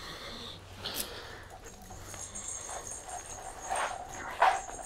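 The small jingle bell of a cat toy ringing, a trigger sound that frightens the dog. A dog whines near the end.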